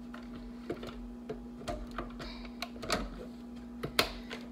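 Irregular plastic clicks and taps of a Ninja blender's pitcher, lid and base being handled and fitted together, the loudest about four seconds in, over a faint steady low hum. The blender motor is not running.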